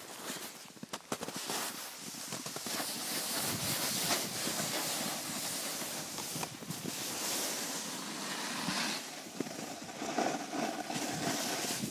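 Snowboard sliding over snow: a steady scraping hiss that sets in after a few knocks in the first second or two.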